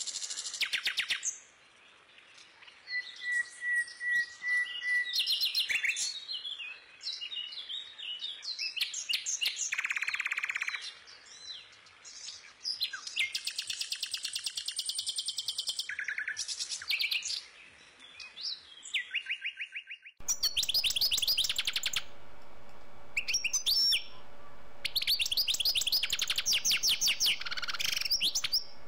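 Small bird chirping and trilling in quick runs of high notes with short pauses. About two-thirds of the way through, a faint steady hum comes in underneath.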